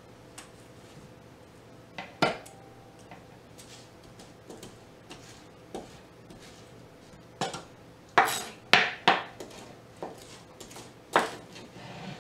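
Chef's knife scraping and knocking against a cutting board as chopped celery and onion are pushed off into a slow cooker: scattered sharp clicks, the loudest a quick run of three past the middle.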